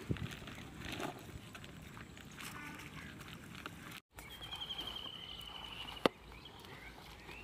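Rustling and handling of a wet woven sack at the water's edge, then a bird's rapid trill, slowly falling in pitch for about a second and a half, and a single sharp click about six seconds in.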